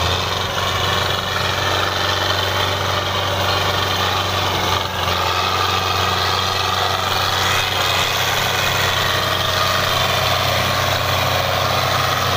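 Belarus 510 tractor's four-cylinder diesel engine running steadily while towing a heavily loaded trailer, pouring black exhaust smoke under the load.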